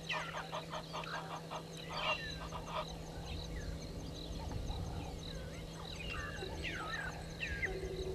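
Egyptian geese honking in a rapid run for about the first three seconds, then scattered whistling bird calls over a faint, evenly spaced ticking.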